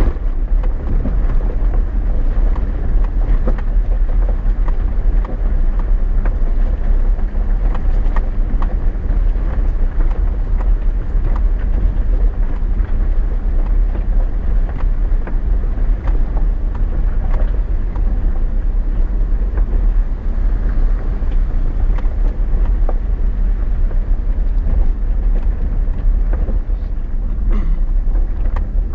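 Chevy Silverado 4x4 pickup driving over a rough, rocky dirt road, heard from inside the cab: a steady low rumble of engine and tyres with frequent small knocks and rattles as it goes over the rocks.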